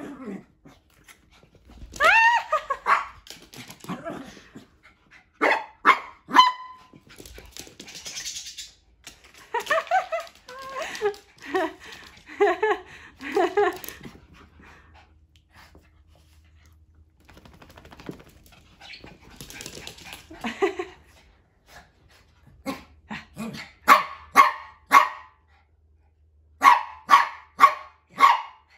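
Small dog barking excitedly during play zoomies: clusters of several sharp barks at a time, separated by short pauses.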